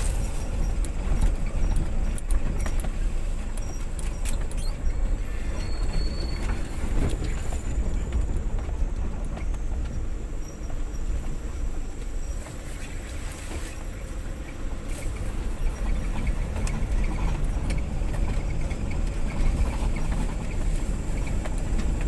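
A vehicle driving slowly over a rough dirt track, heard from inside the cab: a steady low engine and road rumble with scattered rattles and clicks from the body. About halfway through, palm fronds brush along the vehicle.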